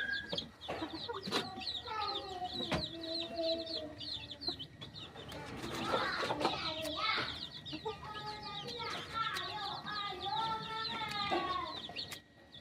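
Chickens clucking, with a steady run of short, high chirps over the calls and a few sharp clicks.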